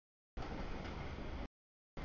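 CSX mixed freight train cars rolling through a grade crossing, a steady low rumbling noise of wheels on rail. The audio drops out to dead silence briefly at the start and again about a second and a half in.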